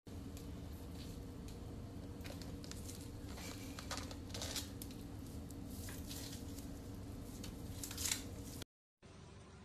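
A few short scratchy scrapes and rustles over a steady hum of room noise, the loudest near the end, as a white lop-eared rabbit paws and scrabbles at a hanging spiky fruit. The sound cuts off near the end.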